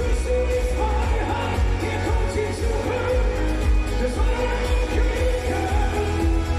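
Live schlager-pop concert: a male singer singing into a microphone over an amplified band with heavy, steady bass.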